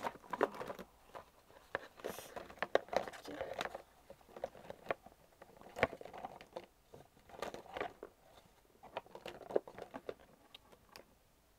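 Handling noise: scattered clicks, taps and rustles of things being moved about on the desk, such as marker pens and paper.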